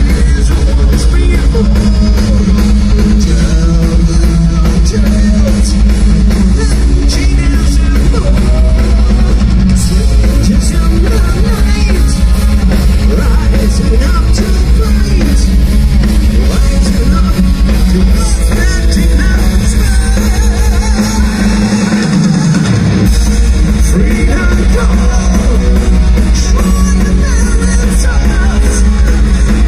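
Power metal band playing live, heard loud from the crowd: distorted electric guitars, bass and a driving drum kit, with singing. The low end drops out for about a second about two-thirds of the way through, then comes back in.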